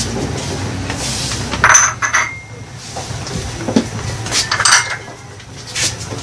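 Metal pots and utensils clinking and knocking: a loud clatter with a short metallic ring about two seconds in, then a softer knock and a few more clinks a little after four seconds.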